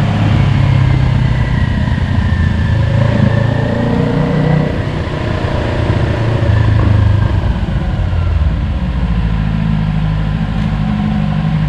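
Motorcycle engine running at low, fairly steady revs, its note drifting down and then rising slightly again.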